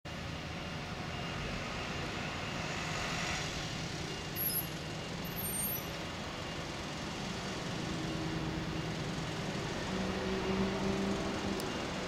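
Steady outdoor traffic noise from passing road vehicles, with an engine hum growing louder for a second or two near the end.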